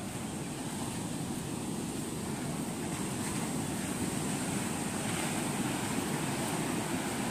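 Sea surf breaking and washing up a sandy beach, a steady rushing noise that grows slightly louder toward the end.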